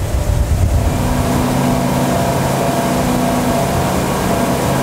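Twin Mercury Verado 300 hp V8 four-stroke outboards running at speed with one exhaust muffler bypassed to show off their sound. A heavy low rumble gives way about a second in to a steady, even engine note.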